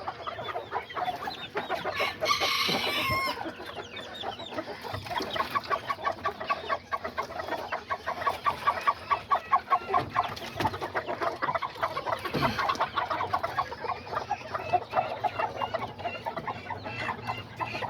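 Kikiriki bantam chickens clucking, with a rooster crowing briefly about two seconds in and a long run of quick, even clucks through the middle.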